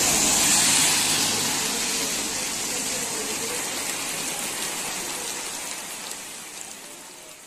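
Heavy rain falling on a wet paved road, a dense steady hiss that gradually fades out over the last few seconds.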